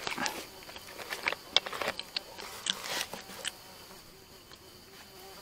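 An insect buzzing close by, with a run of sharp clicks and crackles over the first three seconds or so, then quieter.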